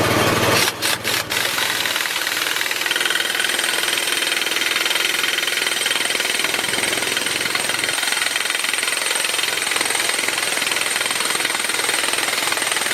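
Pneumatic impact wrench with a 36 mm socket hammering a new axle nut tight on a front wheel hub bearing. It stutters off and on three times about a second in, then hammers continuously.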